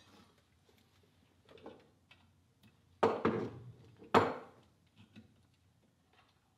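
Two sharp metal clinks, about three seconds in and again about a second later, among faint small ticks and clicks: hand tools and metal parts being handled while a wire timing pointer is fastened to a small engine.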